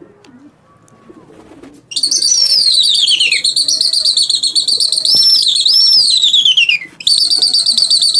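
A person whistling loudly in a fast trill, starting about two seconds in, the pitch sliding down and back up; after a short break near seven seconds the trilled whistle resumes at a steady pitch. It is the kind of whistle pigeon flyers use to drive their flock while it circles.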